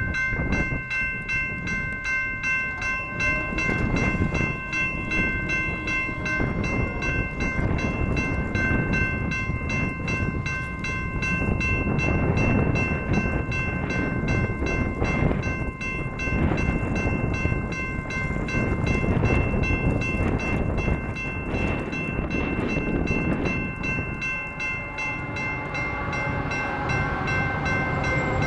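Railroad crossing warning bells ringing on and on in a fast, even rhythm, over a loud, uneven rumbling noise. In the last few seconds a diesel passenger locomotive approaching the crossing adds a rising engine sound.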